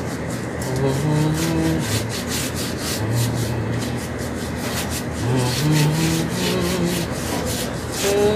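A hand rubbing down a bicycle frame in quick, repeated wiping strokes, with a low hummed tune underneath.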